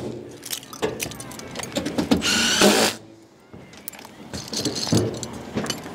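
A cordless drill runs in one short burst of under a second, about two seconds in, among scattered clicks and knocks of metal gear on the panels and rails.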